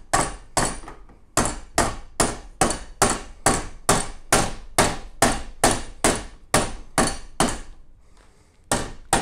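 Rubber-faced mallet striking the brass bell flare of a Slingerland bugle in an even run of about two and a half blows a second, a short pause near the end, then one last blow: the badly dented flare being roughed back into shape.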